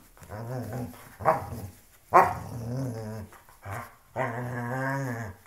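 A dog growling in play as it tugs at a shoe: a run of about five throaty growls whose pitch rises and falls, the loudest starting about two seconds in.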